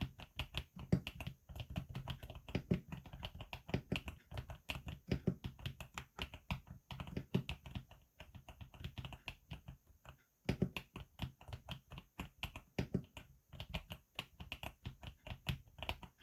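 Typing on a GMK67 mechanical keyboard with Akko Lavender switches, tape-modded and with added foam: a fast, continuous run of keystrokes, several a second, with a brief pause about ten seconds in.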